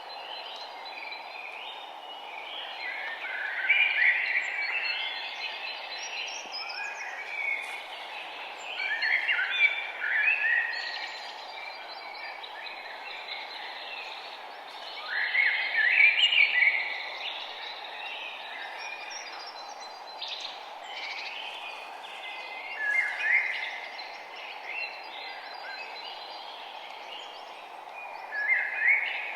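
Songbirds singing outdoors, with chirping, trilling phrases every few seconds. The loudest come about 4, 10, 16 and 23 seconds in and again near the end, over a steady background hiss.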